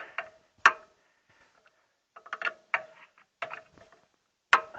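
Socket ratchet clicking in short bursts as the threaded preheater is unscrewed from a Valmet 903 tractor, with a sharp single click and several quick runs of clicks.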